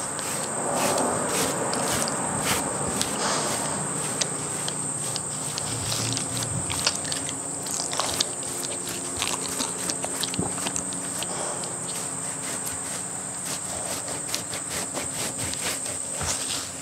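Kong rubber brush rubbing over a short-haired pitbull-boxer's coat, a continuous run of soft scratchy strokes and small clicks, under a steady high-pitched whine.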